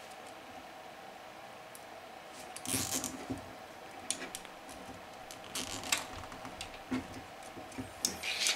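Light handling noises: scattered small clicks and short rustles of a wire bundle and a zip tie being worked against a 3D-printed plastic motor mount, over a faint steady hum.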